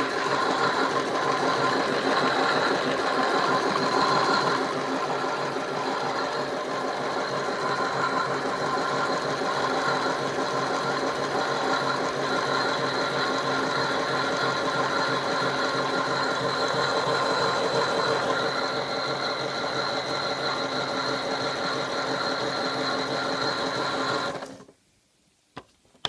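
Toy washing machine's small electric motor running its drum, a steady whirring hum with a thin high whine over it; it cuts off suddenly shortly before the end.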